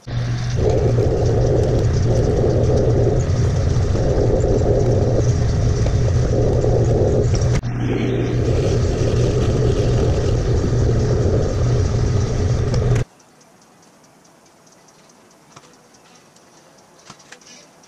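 Metal lathe running, drilling into the end of a spinning metal bar with a twist drill in the tailstock chuck: a loud steady motor hum with a pulsing whir from the spindle and cut. It cuts off abruptly about 13 seconds in, followed by quiet with a few faint ticks of handling.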